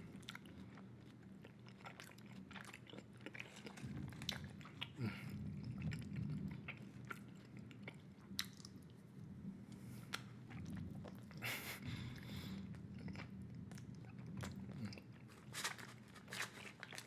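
Close-miked chewing of a large mouthful of bubble gum: irregular smacks and clicks of the gum in the mouth.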